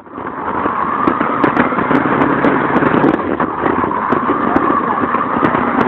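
Radio-controlled car running flat out, a loud steady whirring rush that builds up over the first second and then holds.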